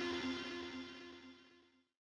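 Final distorted electric guitar chord of a goregrind track ringing out and fading away, dying to silence about a second and a half in.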